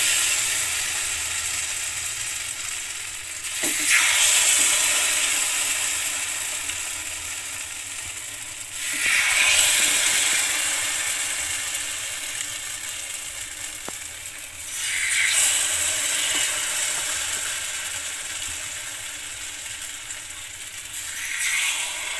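Banana batter sizzling as it is ladled into the cups of a hot, oiled cake mould. The hiss swells suddenly four times, as each ladleful goes in, and slowly dies down between.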